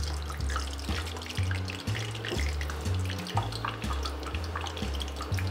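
Background music with a steady bass line, over a light crackling sizzle of a doughnut frying in hot oil in a pan.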